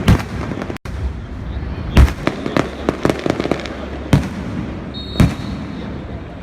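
Aerial fireworks display: four heavy shell bursts about one to two seconds apart, with runs of quick crackling between them.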